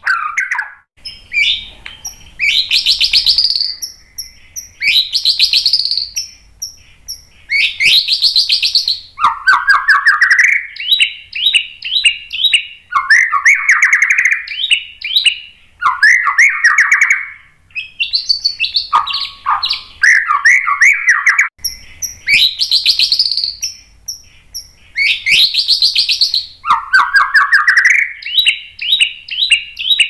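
Male white-rumped shama in full song: loud, varied phrases of a second or two, made of rapid trills and clear high whistles, separated by short pauses.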